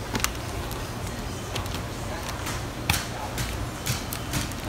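A few sharp clicks and knocks of things being handled on a work counter, the loudest about three seconds in, over a steady low hum.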